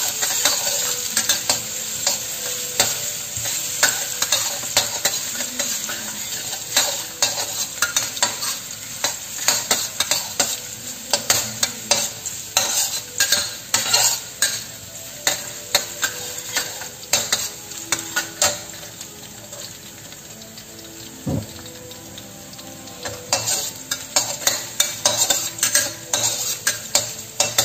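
Chopped garlic and ginger sizzling in hot oil in a stainless steel wok while a metal spatula stirs them, scraping and clacking against the pan in quick irregular strokes. The sizzle slowly quietens; the spatula strokes thin out about two-thirds through and pick up again near the end.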